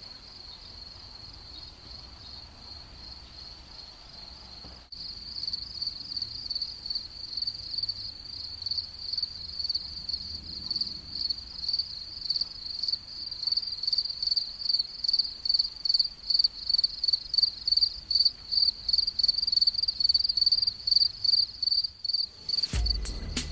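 Crickets chirping in a steady, even pulse of high-pitched chirps, about two to three a second, louder after about five seconds. Near the end a deep low rumble cuts in.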